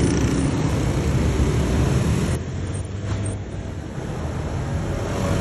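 Town street traffic noise: a steady rumble of passing vehicles that eases a little about two and a half seconds in and builds again near the end.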